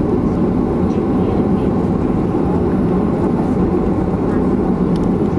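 Steady cabin noise inside a Boeing 737-500 taxiing in after landing: its CFM56-3 engines at idle under a low rumble from the airframe.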